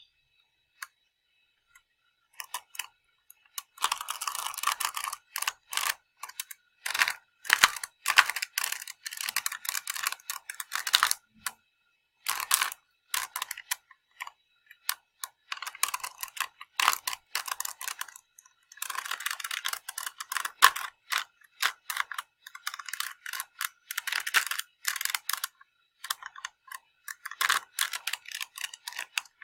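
Layers of a small plastic Rubik's cube being turned: rapid runs of plastic clicking and clacking, with short pauses between the bursts.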